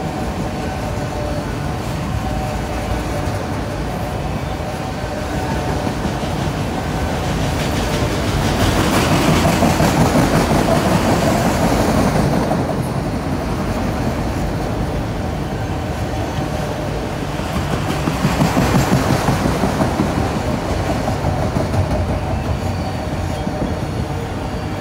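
Freight train of autorack cars rolling past: the steady rumble of steel wheels on the rails with a rhythmic clickety-clack. It swells louder twice, about a third of the way through and again about three-quarters through.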